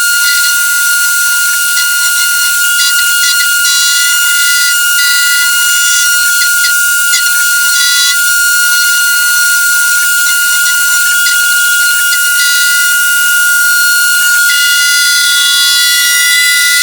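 CNC machine running: a steady high whine under a hiss, with shorter pitched tones starting and stopping every second or so as the motors move.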